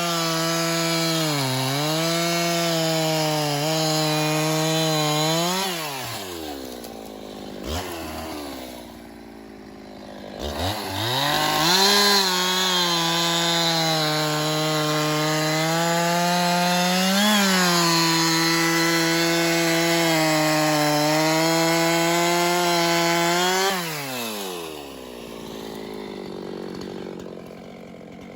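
Two-stroke chainsaw cutting through very hard, dry dead gum at full throttle, its pitch sagging a little under load. About six seconds in it drops back to idle, revs up again near ten seconds for a second long cut, and falls back to idle about four seconds before the end.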